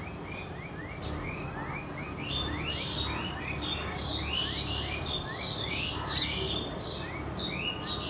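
A group of house sparrows chirping: short rising cheeps come several times a second, growing busier and louder about two seconds in as several birds call over one another.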